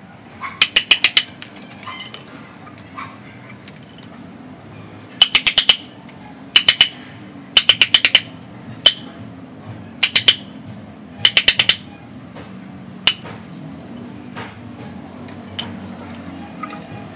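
Hammer driving a wooden-handled chisel into a ficus bonsai trunk to carve it out, in quick bursts of four or five sharp, ringing blows. About eight bursts come over the first thirteen seconds, then the blows stop.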